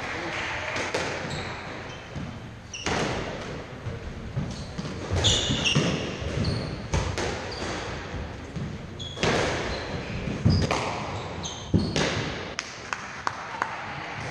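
Squash rally: the ball knocking off rackets and court walls again and again in quick, uneven succession, with short high squeaks of court shoes on the wooden floor.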